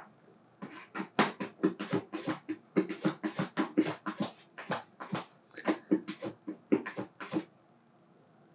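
Battery-powered plush toy dog yapping: a quick run of short, high barks, about two to three a second, that stops about seven seconds in.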